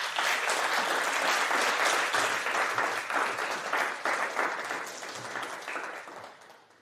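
Audience applauding, starting at once and holding loud, then dying away over the last couple of seconds.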